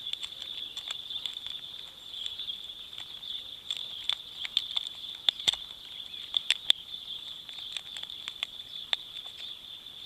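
Steady high-pitched insect chirring, with irregular small clicks and taps as fingers handle a mini Maglite flashlight in the side loop of a leather belt pouch, several sharper clicks in the middle.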